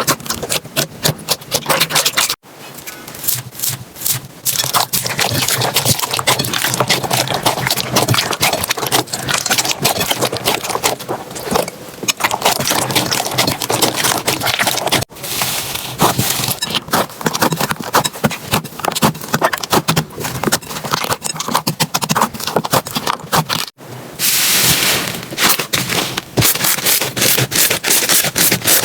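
Slime being squished and poked by hand: dense crackling and popping clicks, broken by abrupt cuts about two, fifteen and twenty-four seconds in.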